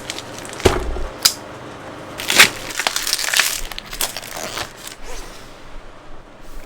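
Packaging being handled and opened: crinkling and rustling, with a couple of sharp knocks near the start and a louder stretch of rustling about two seconds in.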